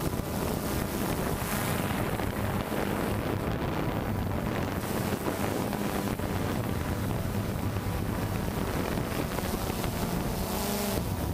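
Quadcopter drone's propellers and motors humming steadily, heard from the drone's own onboard camera, with wind buffeting the microphone.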